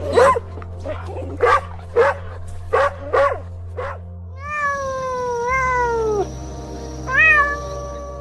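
Cat meowing: a quick run of short meows over the first four seconds, then one long meow that falls in pitch, and a last short meow near the end.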